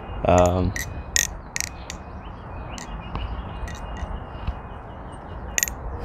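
Butterfly knife (a MachineWise Mayrn Lite balisong) being flipped: the handles and blade clack against each other and the latch in sharp, irregular clicks, about eight over the few seconds.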